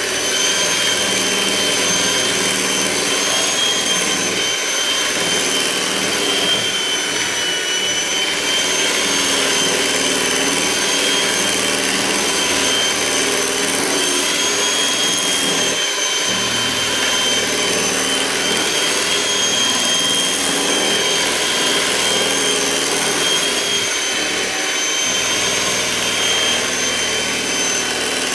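Electric mixer running steadily, beating eggs into a mix of sugar, brown sugar and oil. Its motor gives a high-pitched whine over a constant rushing hiss.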